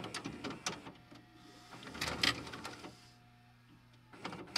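Videocassette recorder mechanism clicking and clattering over a steady electrical hum, with a motor whir. There is a heavier mechanical clatter about two seconds in and another loud run of clunks just before the end.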